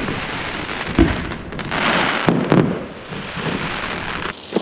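Aerial fireworks battery going off: a sharp bang about a second in, more bangs a little later, and steady crackling between them.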